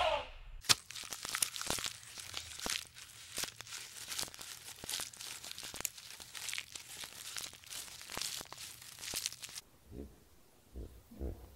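Leafy branches crackling, snapping and tearing in an irregular run of crunches, as giraffes strip browse from a hanging bundle. The crackling stops near the end, leaving a few low thumps.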